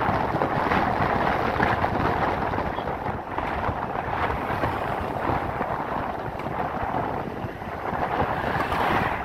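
Wind buffeting the microphone: a loud, rough rushing that swells and eases, dipping briefly about three seconds in and again about seven and a half seconds in.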